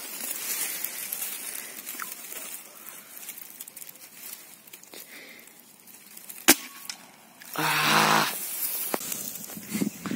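A single sharp crack of an air rifle firing, about six and a half seconds in. About a second later comes a short loud cry.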